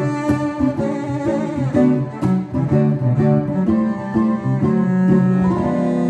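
Cello and 10-string bandolim playing a duet: bowed cello lines under quick plucked bandolim notes, with a long held note near the end.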